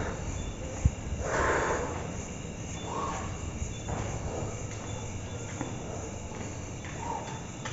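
A person breathing heavily, several loud breaths a second or more apart, the breathing of someone tired from walking. A faint high chirping sounds in the background.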